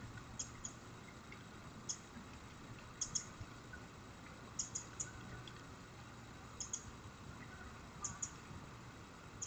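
Faint outdoor ambience through a trail camera's microphone: steady hiss with a low hum, and sharp high clicks, often in quick pairs, every second or two.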